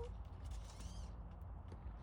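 Male northern cardinal pecking its beak against a car mirror at its own reflection: a few light taps over a steady low rumble.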